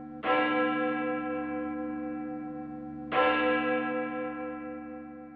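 A single church bell tolling: two strikes of the same note about three seconds apart, each ringing on and slowly fading.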